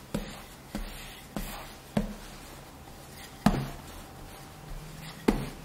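Wooden rolling pin rolling out a slab of yeast dough on a floured wooden board, giving short knocks with each stroke. The knocks come about every half second at first, then two louder ones follow about three and a half and five seconds in.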